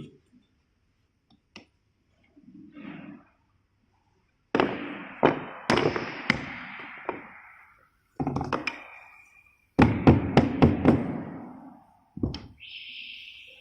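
A series of sharp knocks and thuds in three or four clusters, each followed by a short ringing tail.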